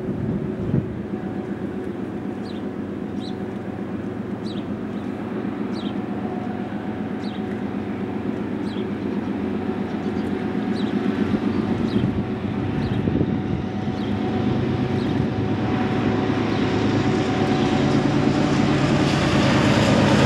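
A train approaching: a steady engine drone with a couple of held tones, growing steadily louder throughout. Short, high chirps repeat about once a second during the first half.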